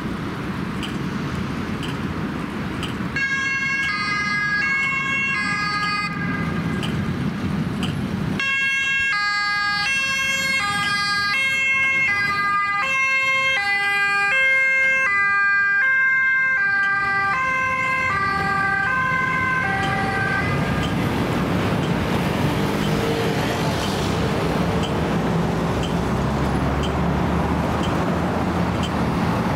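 Two-tone siren of a Mercedes-Benz Sprinter ambulance on an emergency run, switching back and forth between a high and a low note. It starts a few seconds in, is loudest in the middle as the ambulance passes, then fades away, leaving steady road and tram traffic noise.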